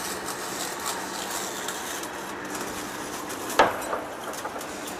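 Workshop machinery running with a steady hum, likely a heavy face lathe at work, and one sharp knock about three and a half seconds in, followed by a lighter one.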